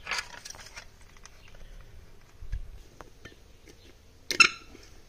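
Small clicks, scrapes and rustles of hands handling plastic sprinkler fittings, with a sharp, louder clatter about four and a half seconds in.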